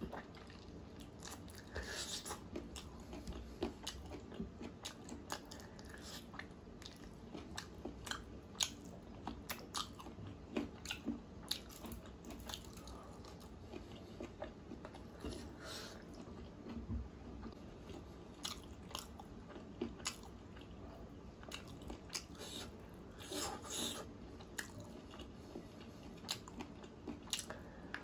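Close-miked mouth sounds of a person eating chicken curry in gravy by hand: wet chewing, lip smacks and biting, with irregular short clicks throughout. Louder clusters of bites come about two seconds in, again around three-quarters through, and at the end.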